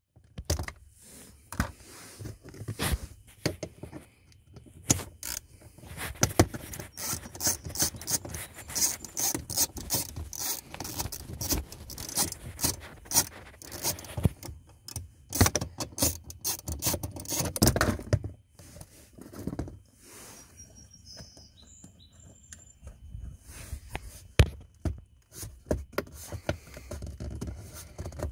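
Plastic dash trim being worked loose with a plastic pry tool and hand tools: many irregular clicks, knocks, scrapes and rattles as clips pop and panels and tools move.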